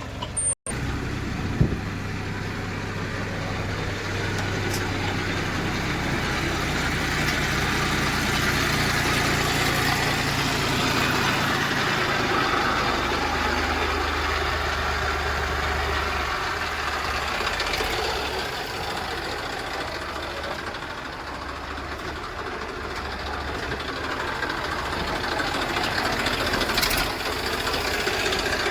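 Diesel engines of heavy machinery running steadily, their low note shifting partway through, with a brief cut and a click near the start.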